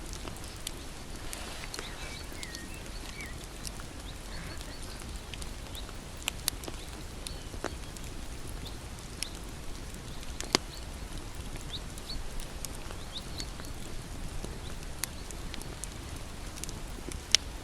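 Wood fire burning with a steady crackle and scattered sharp pops, the loudest a little past halfway and near the end. A few faint high chirps early on.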